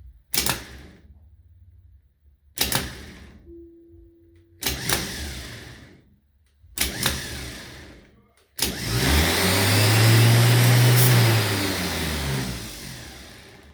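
GM starter motor engaging in four short bursts, then spinning for about four seconds with its whine rising and then falling away. The starter solenoid is bad, which the owner says makes the starter keep cranking after the switch is let off.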